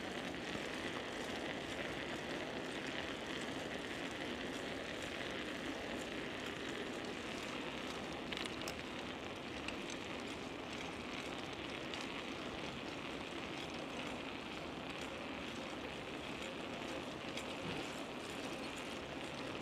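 Steady crackling noise of a bicycle in motion, its tyres rolling over the path surface, with a brief click about eight seconds in.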